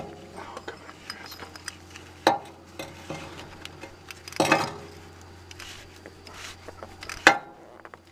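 Clinks and knocks of a strap wrench being fitted and worked around a spin-on oil filter on a Caterpillar diesel engine, four sharper knocks a couple of seconds apart with light rattling between. A low steady hum underneath stops suddenly near the end.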